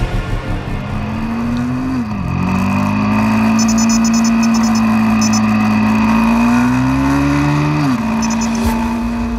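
Motorcycle engine running under way. Its pitch climbs slowly and drops sharply twice, about two seconds in and again near the end.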